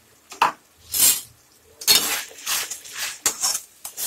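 Metal spatula scraping and clinking against a kadhai in irregular strokes, stirring tomato puree into frying onion paste. The strokes begin about half a second in.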